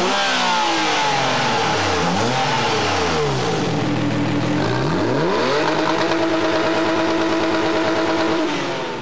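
Sports car engine revving in repeated quick blips, its pitch rising and falling. About halfway through it climbs and holds steady at high revs for a few seconds, then fades out near the end.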